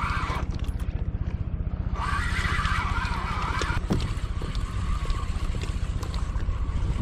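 Wind buffeting the microphone on a kayak at sea, with water sloshing against the hull. A louder rushing hiss swells from about two seconds in and fades before four seconds.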